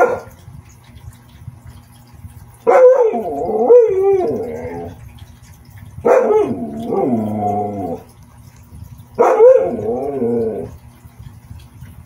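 Siberian husky giving three long, howling barks, each about two seconds and bending up and down in pitch, after a short sharp sound right at the start.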